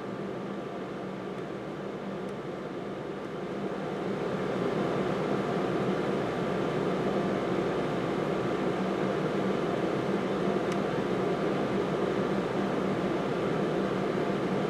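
Steady machine hum with an even hiss underneath, growing a little louder about four seconds in.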